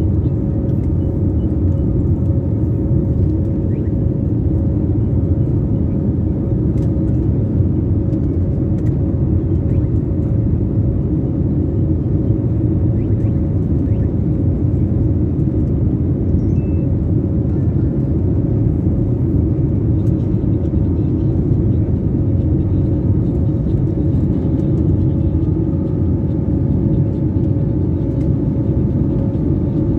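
Steady cabin noise of a jet airliner climbing after takeoff, heard from inside the cabin: the engines' low rumble and rushing air, with a faint steady hum running through it.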